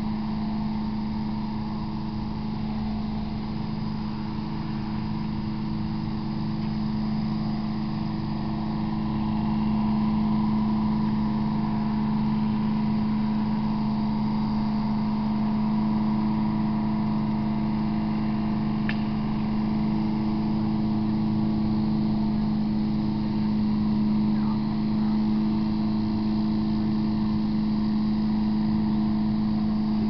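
A steady, even mechanical hum with a low rumble, like a motor running at constant speed, with one brief faint click about two-thirds of the way in.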